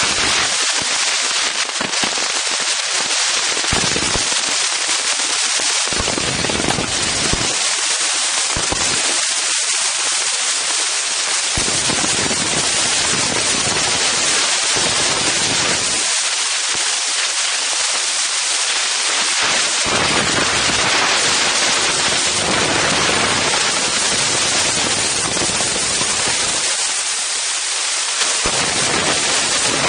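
Strong wind buffeting the microphones of an Insta360 One X camera: a constant crackling hiss, with a low rumble that swells and drops away every few seconds as the gusts hit.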